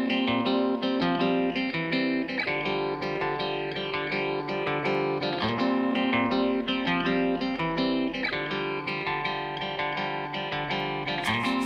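Background music played on guitar.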